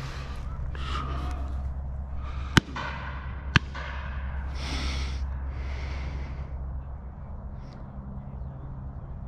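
Browning 725 over-and-under shotgun fired twice, about a second apart: both barrels, each a short sharp crack.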